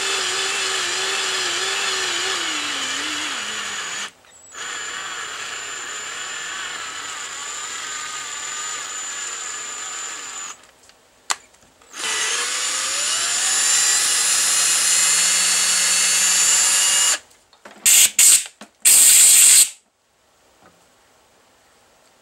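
Cordless drill running a tap into a hole in a 3D-printed plastic part, its motor whine sagging in pitch under load. It stops and restarts twice, the pitch climbing after the second restart. Near the end come a few short, loud bursts, then it falls quiet.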